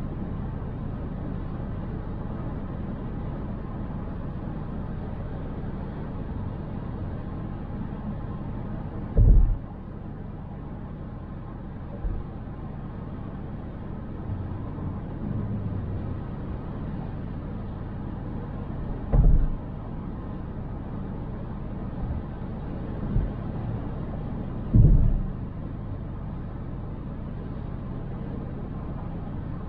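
Car driving on city streets, recorded by a dash cam: a steady low rumble of road and engine noise, broken by three heavy low thumps about nine, nineteen and twenty-five seconds in.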